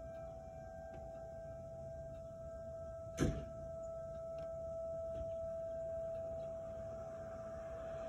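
Outdoor warning siren sounding a steady single tone during a test, swelling a little and easing off again. A single sharp knock about three seconds in.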